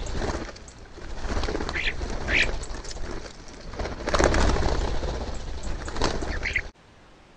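A flock of common starlings squabbling at a feeder: a flurry of wingbeats and scuffling, with a few short, harsh calls. The sound stops abruptly near the end.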